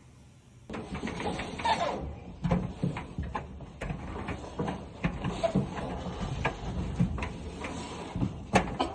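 Hands-on work on a clothes dryer: irregular knocks, clanks and rubbing of panels and parts being handled, with a short falling squeak a little under two seconds in.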